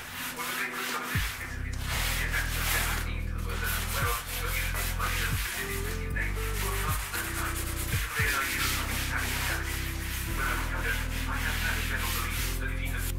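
Sponge scrubbing a laminate countertop in quick back-and-forth strokes, a rough rubbing hiss, over background music.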